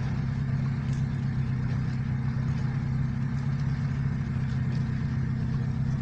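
Off-road vehicle's engine idling steadily at an even, unchanging pitch, with no revving.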